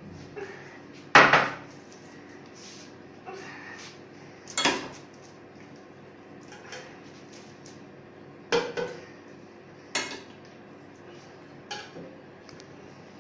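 A utensil clinking and knocking against a glass bowl while cooked pumpkin is scooped and worked in it: about half a dozen sharp clinks spaced a few seconds apart, the loudest about a second in.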